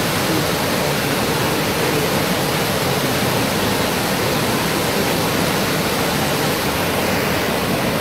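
Rushing water from a waterfall-fed mountain stream, a loud, steady, unbroken rush.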